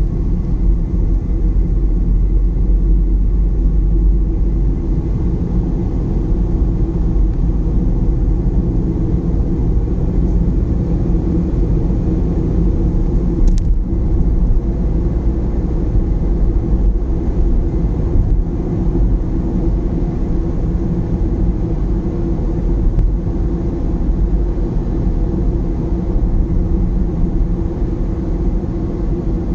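Steady low rumble of road and engine noise inside a moving car's cabin at highway speed. A single brief click sounds about halfway through.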